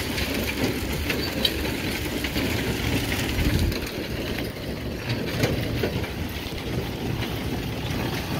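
A farm engine running steadily under load, with rattling and occasional clicks from the harvesting machinery.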